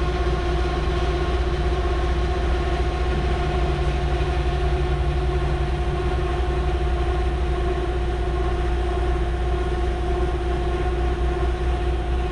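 Steady drone of heavy machinery, with several steady humming tones over a low rumble that neither rises nor falls.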